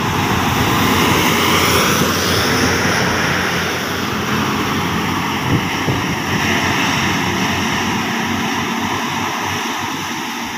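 Large diesel buses and a cargo truck passing close and climbing uphill, their engines working under load in a heavy, steady drone. The noise is loudest about one to three seconds in.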